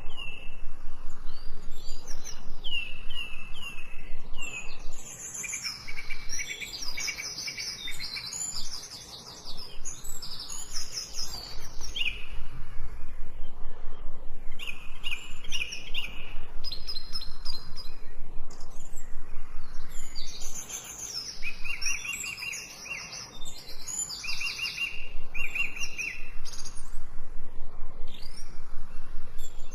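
Several small birds chirping and singing at once, in fast runs of short, high repeated notes that overlap one another.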